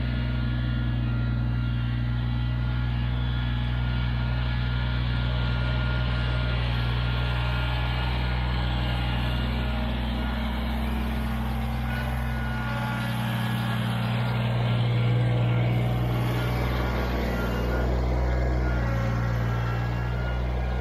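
Kubota BX23s compact tractor's three-cylinder diesel engine running steadily, getting a little louder about two-thirds of the way through.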